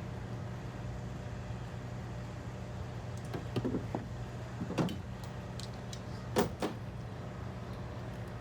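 Spark plug wires and engine-bay parts being handled while the wires are fished into place: a few light clicks and knocks past the middle, the loudest pair a little after six seconds, over a steady low hum.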